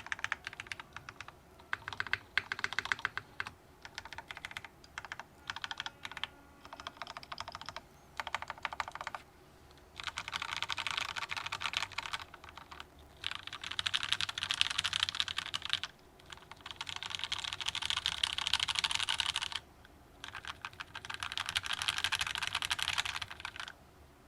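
Custom mechanical keyboard (TGR x Singa Unikorn R2.1, polycarbonate case, FR4 plate, Gateron Milky Yellow linear switches lubed with Krytox 205G0, GMK keycaps) being typed on in bursts of rapid keystrokes with short pauses between. The bursts start out short and choppy, then become longer and denser, about two to three seconds each.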